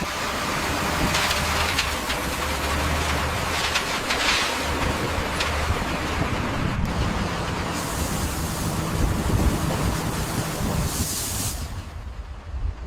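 Heavy construction machinery running with a steady low engine hum and several short hissing bursts over it.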